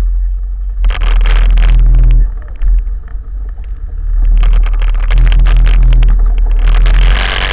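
Quad bike engine revving hard in two loud bursts, about a second in and again from about four and a half seconds, as it pushes along a muddy, waterlogged track. Mud and water splash and hiss near the end.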